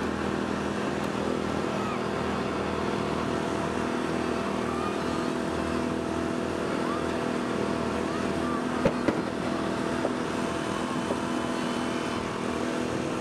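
Small petrol engine of a hydraulic rescue tool's power unit running steadily at constant speed while the tool works a car door. Two sharp snaps come about nine seconds in.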